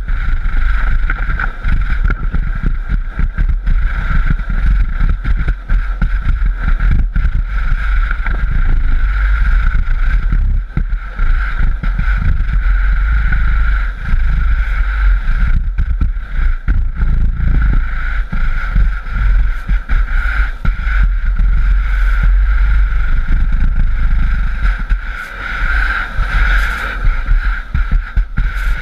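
Sandboard sliding fast over rippled sand while being towed: a loud, continuous rushing and rumbling of the board on the sand, mixed with wind buffeting the board-mounted microphone.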